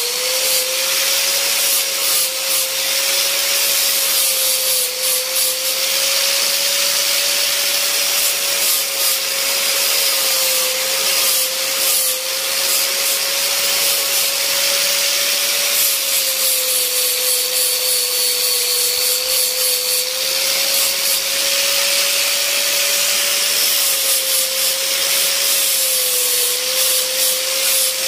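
Small electric rotary tool running with a steady, slightly wavering whine while its bit or sanding head grinds against wood, giving a continuous scratchy hiss. The pitch of the whine dips a little as the tool is pressed into the work.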